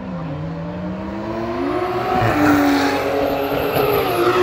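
Drag-race cars accelerating hard down the strip, engine pitch climbing through the revs and dropping at a gear shift about two seconds in before climbing again.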